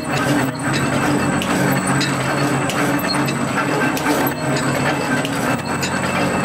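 Automatic barbed wire machine running, a steady mechanical clatter of its gears, cams and ratcheting parts as the twisting head wraps barbs onto the line wire.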